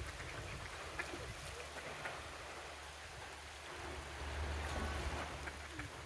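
Mallard ducks quacking faintly now and then over the steady rush of a shallow stream, with a low rumble underneath.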